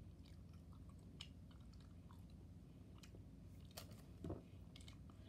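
Faint close-up chewing of soft, chewy dessert jellies, with small scattered mouth clicks and a slightly louder one about four seconds in.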